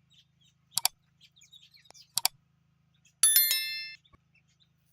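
Two sharp clicks, then a metallic ring struck a few times in quick succession and fading out.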